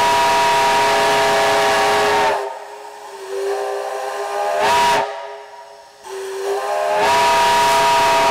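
Chime steam whistle on a ground stand, fed with steam from a Shay locomotive, sounding a chord of several notes over loud steam hiss. It gives a long blast of about two and a half seconds, a short toot about five seconds in, and opens again for a long blast near the end, the notes sliding up into pitch each time the valve opens.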